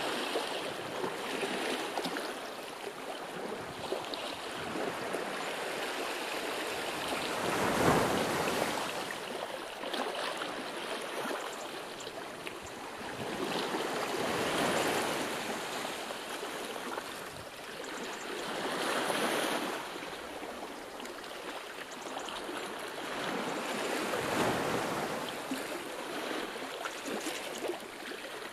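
Sea waves washing in: a steady rush of water that swells and falls about every five seconds, the strongest swell about eight seconds in.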